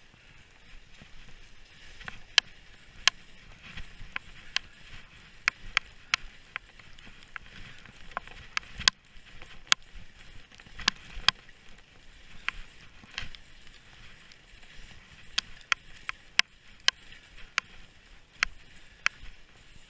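Skis running down chopped-up off-piste snow, with a steady hiss and irregular sharp clicks and knocks.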